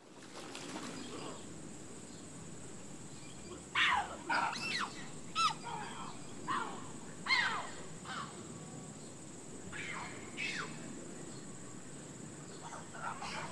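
A series of short, high animal calls, each sliding down in pitch, coming in little clusters about four seconds in, around seven seconds in, around ten seconds in and near the end, over a steady high-pitched whine.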